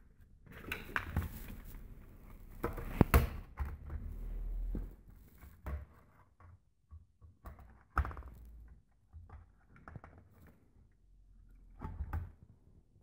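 Scattered knocks, clicks and rustling as an opened LCD TV is handled, its main circuit board and metal chassis being moved about, with sharp knocks about three seconds and eight seconds in.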